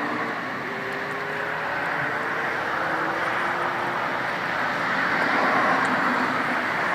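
A motor vehicle engine running with an even rushing noise that slowly gets louder, its note rising a little and dropping back several times.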